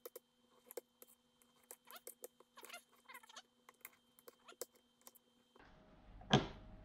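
Kitchen knife slicing squid tubes on a ceramic plate: scattered sharp clicks and taps of the blade on the plate, with a few short squeaks about two to three seconds in. Near the end comes one louder knock.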